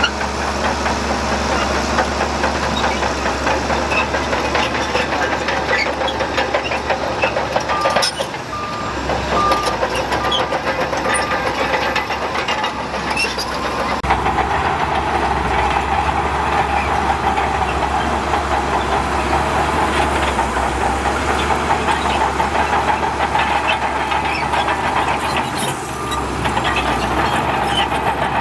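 Heavy diesel earthmoving machinery running steadily under load, the engine of a bulldozer or dump truck spreading fill soil. A reversing alarm beeps in a steady series from about eight to thirteen seconds in, and again near the end.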